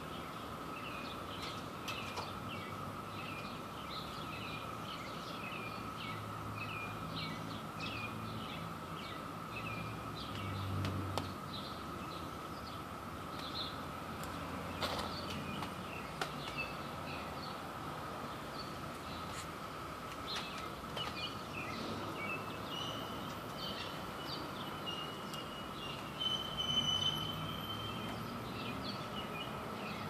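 Steady droning chorus of Brood II periodical cicadas in the background, with birds chirping over it.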